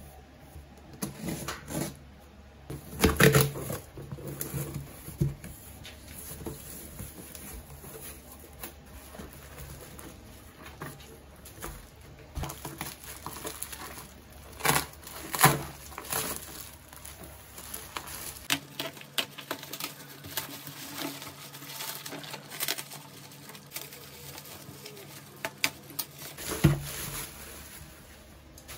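Hands unboxing a cardboard parcel and unwrapping bubble wrap from a boxed Nendoroid figure: scattered rustling, crinkling and light tapping of cardboard and plastic, with a few sharper knocks along the way.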